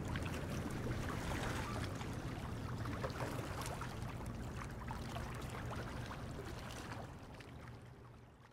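Water lapping and splashing at the waterside in small irregular slaps over a steady low rumble, fading out near the end.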